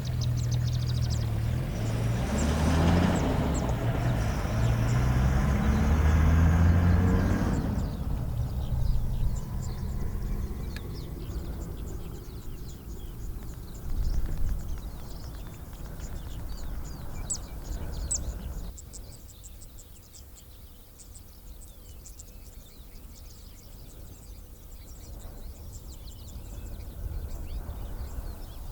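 A vehicle engine running, its pitch rising and falling, stops abruptly about eight seconds in. Birds then chirp over a quiet outdoor background.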